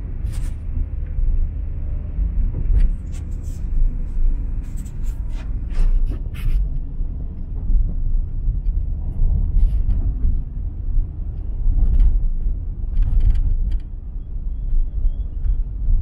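Steady low rumble of a car driving in the rain, with scattered short sharp clicks throughout.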